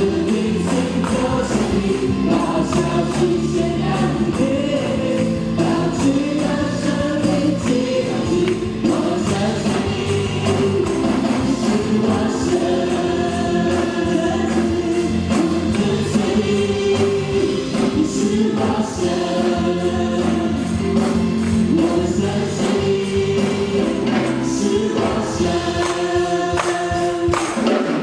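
A worship team of mixed male and female voices singing a Mandarin Chinese praise song together, backed by keyboard and band, with a tambourine shaken on the beat.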